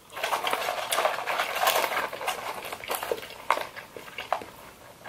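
Paper fries carton rustling and crinkling as a hand digs out fries, with many small sharp crackles. It is busiest in the first couple of seconds and thins to scattered clicks after about three and a half seconds.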